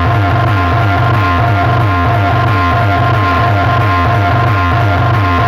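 Loud music played through a large DJ sound system, with a fast pulsing bass line under a held high tone.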